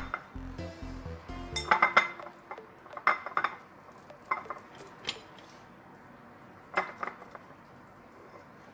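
Hand-dredging of raw turkey slices in flour in a ceramic plate, with about six sharp clinks and knocks against the plate between two and seven seconds in.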